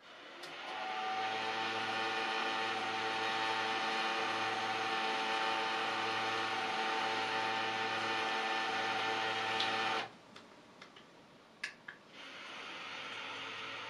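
Somfy motorised Venetian blinds' headrail motors running as both blinds lower together, a steady whirring hum with a whine of several fixed pitches, stopping abruptly about ten seconds in. After a couple of sharp clicks, one motor starts again more quietly near the end as the left blind rises. The uploader finds the right-hand blind's motor unacceptably noisy and the left one acceptably quiet.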